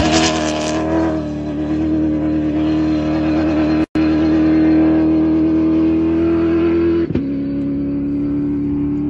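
Rally car engine running at high, steady revs, cutting out briefly about four seconds in; its note steps down slightly about seven seconds in.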